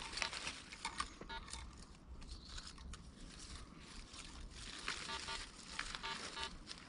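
Dry forest leaf litter rustling and crackling under feet and the detector coil. A metal detector gives short pulsed beeps over a target about a second in and several more times a little past the middle. The target reads as shallow.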